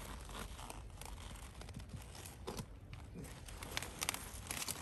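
Cabbage leaves crinkling and tearing as gloved hands pull the outer leaves back from a head of cabbage being harvested, with a quick run of crackles near the end.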